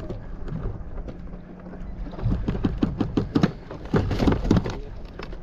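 Knocks and clatter around a sea kayak over a steady low wind rumble on the microphone, with a quick run of irregular knocks about two seconds in and another just after four seconds.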